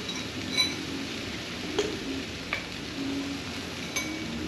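A spoon stirring soy sauce and sugar in a small ceramic bowl, clinking against the side of the bowl four times.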